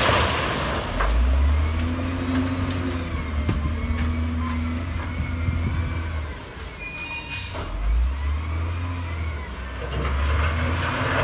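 Heavy diesel construction machinery running, its engine note swelling about a second in and again near eight seconds, with a short hiss around seven seconds.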